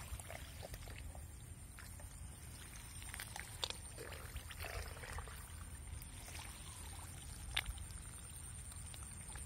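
Outdoor field noise: a low wind rumble on the microphone, soft rustling of rice plants with a few sharp clicks, two of them standing out about three and a half and seven and a half seconds in, and a thin steady high whine.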